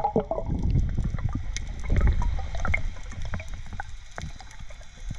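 Underwater sound picked up by a camera in its waterproof housing: a muffled low rumble of moving water, with scattered sharp clicks and crackles throughout.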